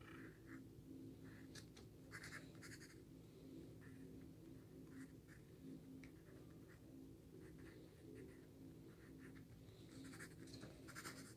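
Faint scratching of a wooden graphite pencil on paper as a face is sketched: short, irregular strokes, bunched about two seconds in and again near the end, over a low steady hum.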